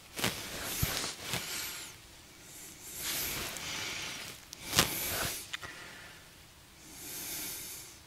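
A person's breathing close to the microphone, a hissing breath roughly every two seconds, with a few sharp clicks of clothing or gear handling in between.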